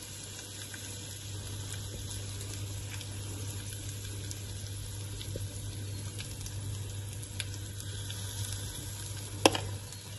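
Dal batter sizzling faintly as it is spooned into the hot oiled cups of an appe pan, with scattered small crackles over a steady low hum. A single sharp clink of the ladle comes about nine and a half seconds in.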